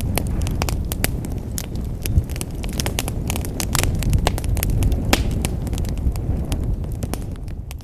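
Wood fire burning in a fireplace: a steady low rumble of flames with frequent crackles and sharp pops from the burning logs, fading out right at the end.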